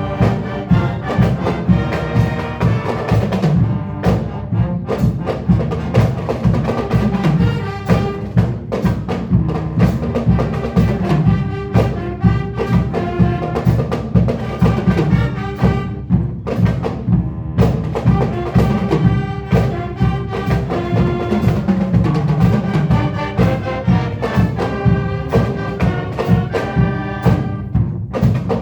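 Marching band music: brass over drums and percussion, with a steady pulsing beat.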